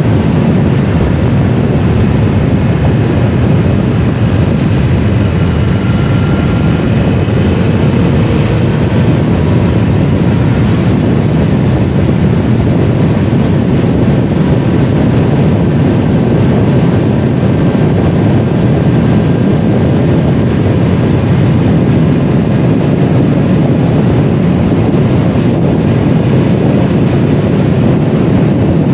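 Triumph Explorer 1200's three-cylinder engine running on the move under steady wind rush on the microphone.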